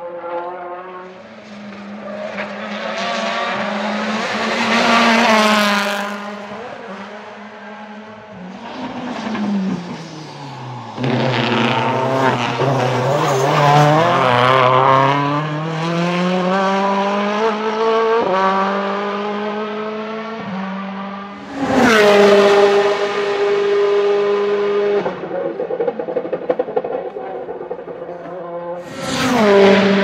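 2014 Citroën C-Elysée WTCC race car's 1.6-litre turbocharged four-cylinder engine running on track. The pitch drops and then climbs again as the car slows and accelerates, and the sound jumps suddenly louder about two-thirds of the way through and again near the end.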